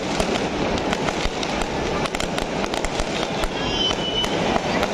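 Fireworks display: a dense, continuous run of crackling pops and sharp bangs over a steady rumble, with a brief high whistle about four seconds in.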